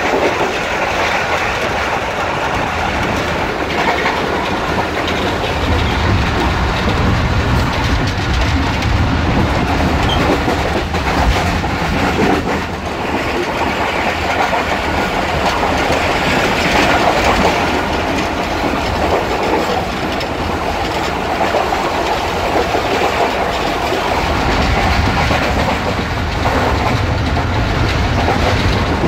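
Passenger train running along the track: a steady, continuous noise of wheels on rails.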